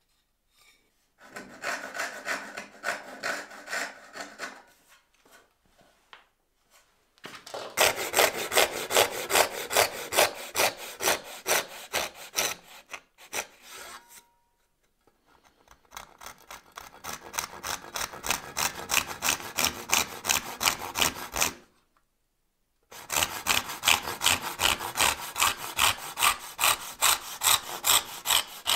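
Hand backsaw cutting through a small softwood block, in quick back-and-forth strokes of about three a second. The sawing comes in several bouts with short pauses between them.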